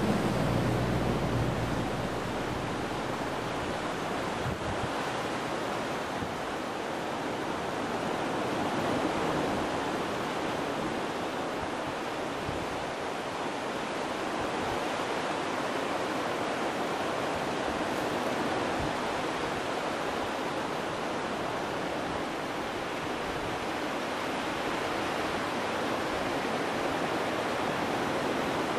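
River rushing steadily. A pickup camper's engine fades away during the first couple of seconds.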